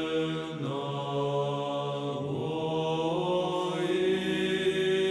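Slow chanting used as background music: long held notes over a steady low note, with the pitch shifting a few times.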